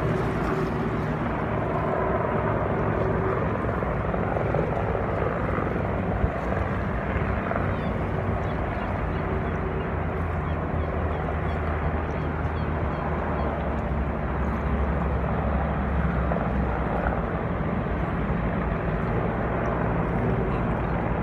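Steady engine drone over an even rushing noise. A low hum swells about halfway through, then eases.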